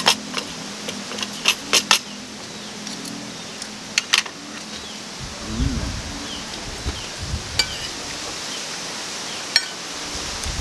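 Metal cutlery clinking on ceramic plates and a bowl during a meal: a knife cutting a crispy pork knuckle and spoons tapping and scraping. The clinks come in quick clusters in the first two seconds and about four seconds in, then sparser.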